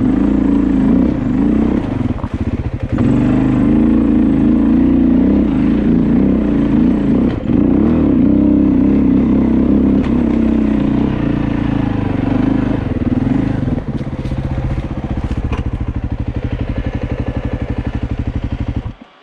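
Dirt bike engine working up a rocky singletrack climb, its pitch rising and falling with the throttle. From about fourteen seconds in it settles into a lower, even chugging, and near the end the sound falls away abruptly.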